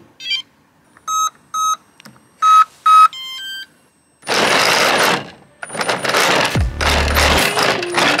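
Electronic beeps from an RC radio transmitter as its buttons and switches are worked: four short beeps and then a longer, quieter tone. From about four seconds in, loud harsh noise comes in several bursts.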